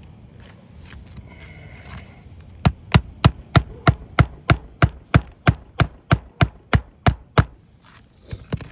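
Hammer driving a roofing nail into an asphalt shingle: a run of about sixteen quick, evenly spaced strikes, about three a second, starting a little under three seconds in, followed by two lighter taps near the end.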